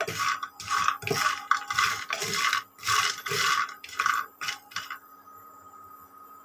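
Wooden spatula stirring hard, dried pumpkin boris around a dry nonstick frying pan, with no oil in it, in a quick series of scraping, rattling strokes that stop about five seconds in. The boris are being dry-roasted until brown.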